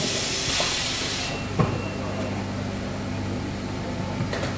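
Embossing heat press hissing, the hiss cutting off suddenly about a second in, then a single clunk as the press opens, over a steady low machine hum.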